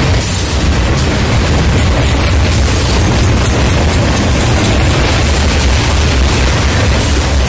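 Long freight train's open-top hopper cars rolling past close by: a loud, steady rumble of steel wheels on rail, heaviest at the low end.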